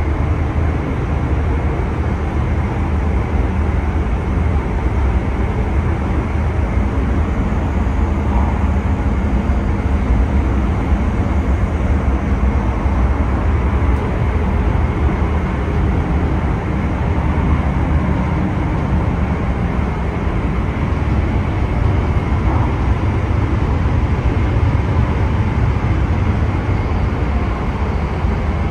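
Steady running noise of a Hayabusa Shinkansen bullet train at speed, heard from inside the train's toilet compartment: a constant low rumble with a hiss of rushing air above it.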